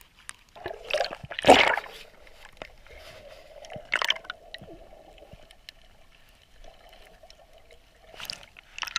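Water splashing and gurgling around a camera as it goes under the sea surface, a loud splash about a second and a half in. Muffled underwater sound with a faint steady hum follows, and splashing returns near the end as it comes back up.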